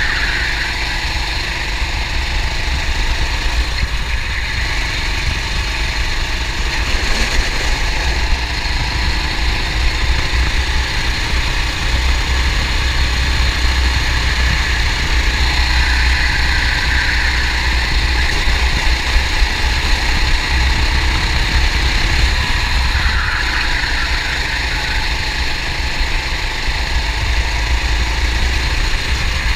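Kart engine running flat out, its note rising and falling with the throttle through the laps, with a strong low rumble from the air rushing past the kart-mounted camera.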